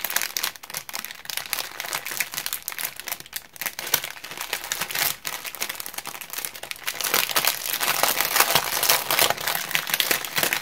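Small plastic bags of rhinestones crinkling and rustling as they are handled, with fine crackly clicks throughout, louder in the last third.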